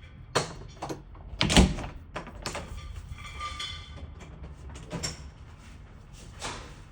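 A string of knocks and clatters with scraping between them, the loudest about a second and a half in.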